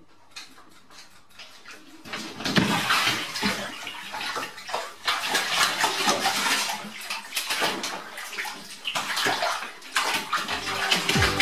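Bath water splashing and sloshing unevenly as a cat is washed, starting about two seconds in.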